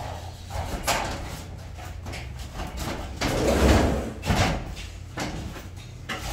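A fibre-cement wall sheet being slid and pushed into place against steel stud framing: scraping and rubbing, with a few knocks.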